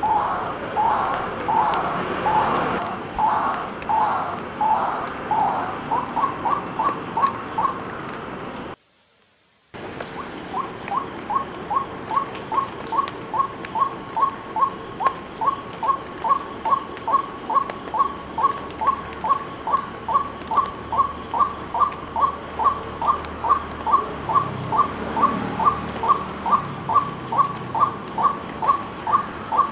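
White-breasted waterhen calling: a long series of repeated croaking notes. It starts with slower, fuller notes that speed up, breaks off briefly about nine seconds in, then resumes as a steady run of short notes, about two or three a second.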